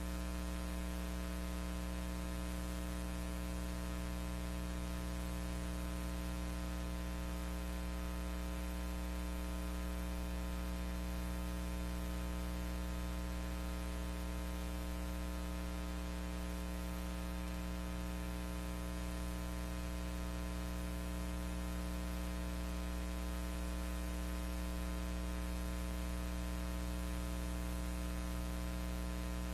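Steady electrical hum with a layer of hiss, unchanging throughout. It is the noise of a silent film's transfer, with no locomotive sound on the track.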